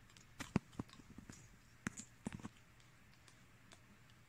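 A few faint, irregular clicks and light knocks, bunched in the first couple of seconds, the loudest about half a second in, over quiet room hiss.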